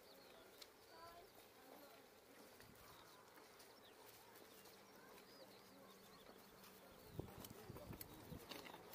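Near silence: faint open-air ambience with a few faint, brief chirps and a faint steady hum in the second half.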